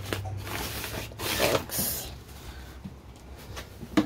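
Hands rubbing and brushing against the fabric and plastic panels of a children's book and toy organizer: several short scraping rustles in the first two seconds, then a sharp knock near the end.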